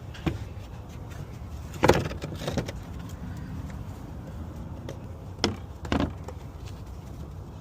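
A handful of sharp clicks and clanks from tools and parts being handled, the loudest about two seconds in, over a steady low rumble.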